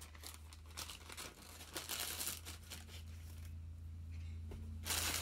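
Plastic air-cushion packing bags crinkling and rustling as they are handled, with faint scattered crackles at first and a louder rustle near the end. A low steady hum runs underneath.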